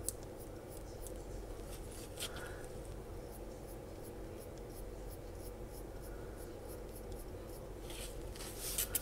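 Flat paintbrush bristles dragged in short scratchy strokes over a small plastic model seat, blending oil paint with odourless thinners, louder strokes near the end, over a steady low hum.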